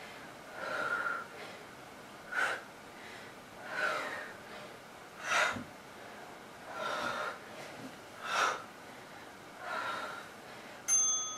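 A woman breathing hard while doing push-ups: a sharp, short exhale about every three seconds with a softer, longer breath between each. A short beep starts right at the end.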